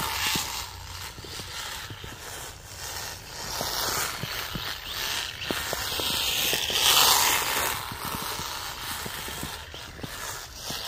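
Kyosho Sand Master 2.0 RC buggy's electric drivetrain running in snow: a scratchy, chattery gearbox noise that swells and fades as the buggy struggles for grip. The owner is unsure whether a gearbox this chattery is normal.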